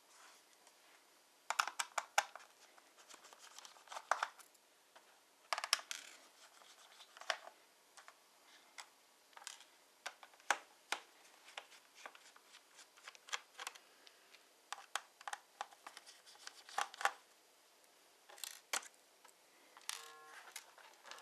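Irregular clicks, taps and short scrapes of small hand tools against the plastic case and parts of an Acer Aspire 5 laptop being taken apart.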